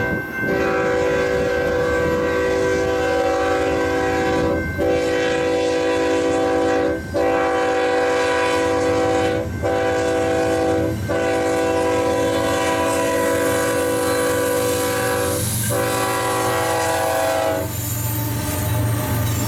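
Diesel locomotive's multi-chime air horn sounding a string of loud blasts with brief breaks between them, the grade-crossing warning, stopping as the lead engine reaches the crossing. The rumble and rail clatter of the passing locomotives follows near the end.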